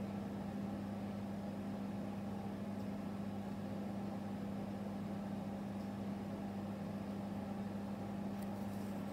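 A steady low hum from a running machine or appliance, unchanging throughout, over a faint hiss, with a couple of faint high ticks near the end.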